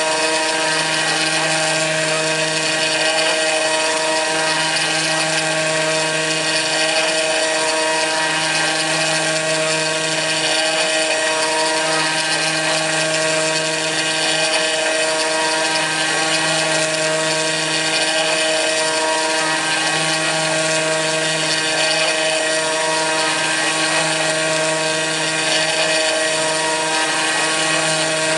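Kress FME-1050 router spindle on a hobby CNC mill running at steady speed while milling aluminium, a steady whine with a lower hum that drops out and returns every few seconds.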